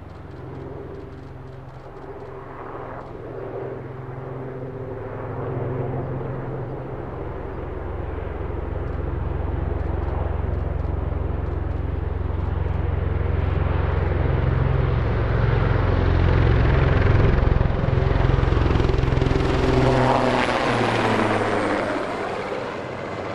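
Low-flying military helicopter, its rotor and engine sound growing steadily louder as it comes closer. It peaks about three quarters of the way through, then drops in pitch and fades as it passes.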